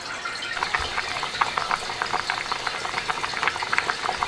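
Pot of pork kimchi stew simmering on low heat, the broth bubbling with a steady run of small pops and ticks that start about half a second in.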